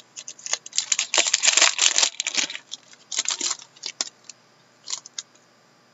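Foil wrapper of an Upper Deck Masterpieces hockey card pack crinkling and tearing as the pack is opened by hand. It comes in dense crackly bursts for the first two and a half seconds and again briefly a little after three seconds, then a few light ticks.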